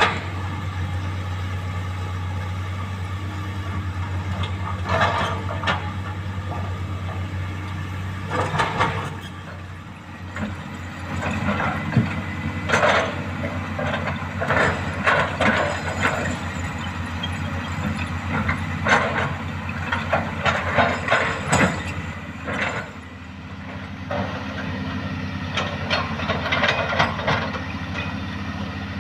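Hydraulic excavator's diesel engine running steadily, with repeated clanking and scraping as the bucket works sand and rocks, most of it in the middle and again near the end.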